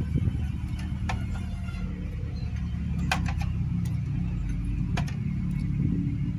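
Small motorcycle engine idling steadily, shortly before it is torn down, with a few sharp metallic clicks about one, three and five seconds in.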